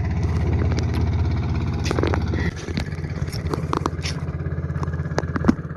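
A small engine running steadily with a fast, even putter, easing slightly about two and a half seconds in, with a few sharp clicks over it.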